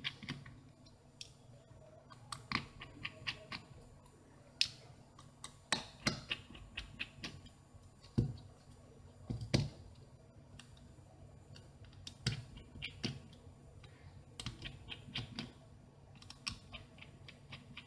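Small metal tool clicking and tapping against the plastic frame of a Samsung Galaxy S3 as it is taken apart: irregular light clicks, a few sharper ones, some in quick runs.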